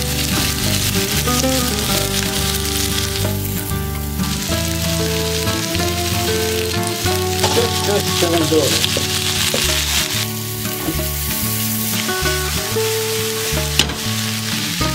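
Cauliflower, potato and bell pepper sizzling steadily as they fry in oil in a nonstick frying pan, stirred now and then with a spatula.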